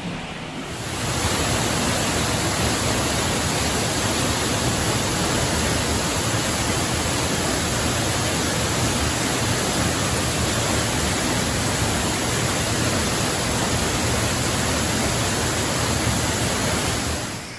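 Waterfall pouring through an opening in a cave roof into a pool: a loud, steady rush of falling water that comes in abruptly under a second in and stops just before the end.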